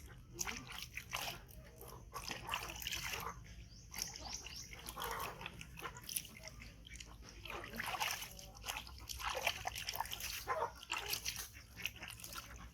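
Baby monkey making short squeaking calls again and again.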